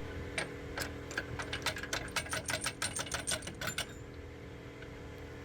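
Rapid, regular ticking clicks, about five a second, starting about half a second in and stopping near the four-second mark, over a faint steady hum.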